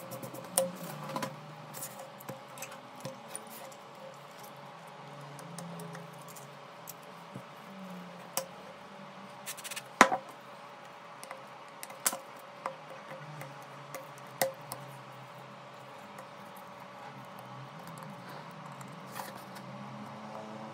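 Small hand tools clicking and tapping against a OnePlus 8 smartphone during repair work: scattered sharp clicks, the loudest about ten seconds in, over a steady faint hum.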